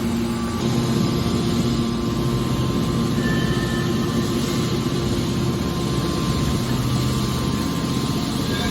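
Hydraulic scrap metal baler running: a steady machine drone with a low rumble and several held humming tones.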